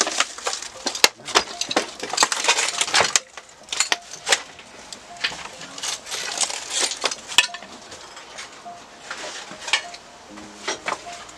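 Crunching and rustling with many sharp clicks, knocks and clinks, as of someone moving about and handling clutter and debris. It is densest for the first three seconds, then thins to scattered knocks.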